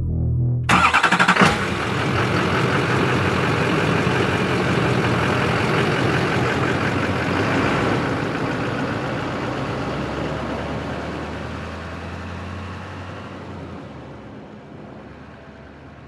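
An engine cranks and catches about a second in, then runs steadily and slowly fades away over the rest of the sound.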